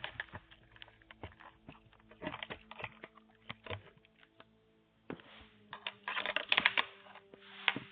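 Irregular clicks, taps and scraping from a doorbell camera and its mount being handled, heard through the doorbell camera's own narrow-band microphone. A faint steady hum lies underneath. The clicking grows busier and louder in the second half.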